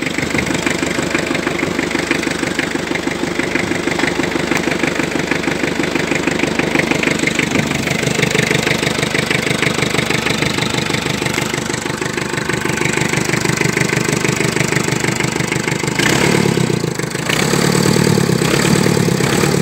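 A tractor engine, just jump-started, idling with a steady rapid beat. About 16 seconds in, its sound grows fuller and lower.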